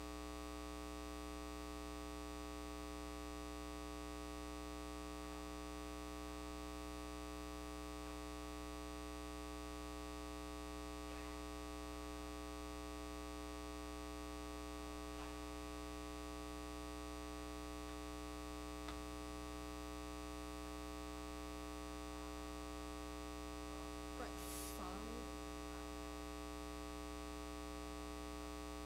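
Steady electrical mains hum, a stack of even buzzing tones that does not change. A brief, faint voice-like sound comes near the end.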